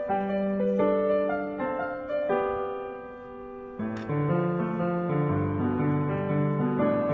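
Background piano music, a gentle melody of single notes. About four seconds in, it moves into a fuller passage with lower bass notes added.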